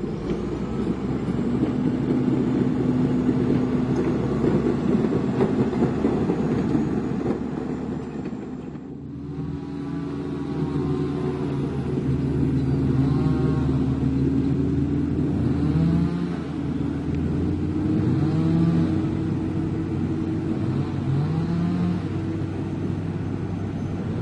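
Heavy diesel engine of earthmoving equipment running steadily under load. It dips briefly about nine seconds in, then revs up three times in the second half.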